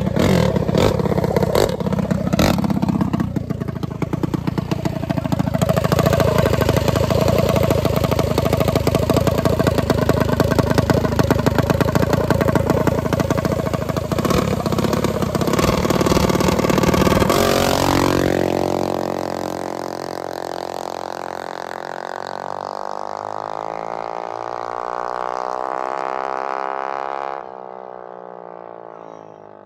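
Small-block minibike engines running and revving loudly. About 18 seconds in the sound changes to a single engine with a clear, shifting pitch, which drops off sharply near the end.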